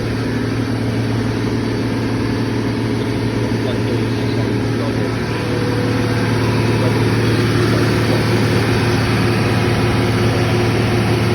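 Belt-driven Vilter R22 refrigeration compressor running steadily, a constant low hum with steady tones above it, getting slightly louder about halfway through.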